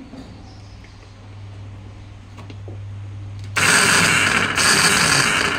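Motor of a cordless grass trimmer, bench-powered. A low hum builds slowly, then about three and a half seconds in a loud, rough noise starts and runs for about two seconds with a short dip in the middle. It is the sign of worn-out motor bearings.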